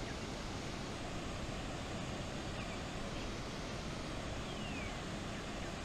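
Steady rushing outdoor noise, with a few faint high chirps, one of them a falling sweep near the end.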